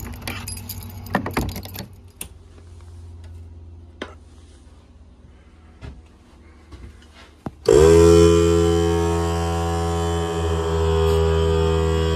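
A steel padlock on a wooden shed door is handled and unlocked, with metal clicks and rattles, followed by a few scattered clicks. About eight seconds in, a loud steady hum made of several tones starts suddenly with a short upward swoop and carries on.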